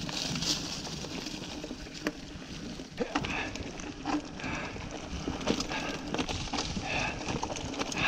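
Mountain bike rolling down a leaf-covered dirt forest trail: tyre noise over dirt and leaves with irregular knocks and rattles from the bike over bumps, and a few brief squeaks.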